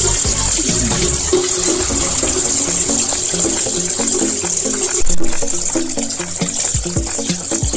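Tap water running into a sink and splashing over wet motorcycle gloves as they are scrubbed by hand, over background music with a steady beat.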